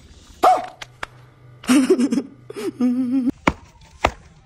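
Shoes stamped twice on hard dirt ground near the end, two sharp thuds, knocking off caked mud. Before them come a few short vocal noises from a person, ending in a wavering hum.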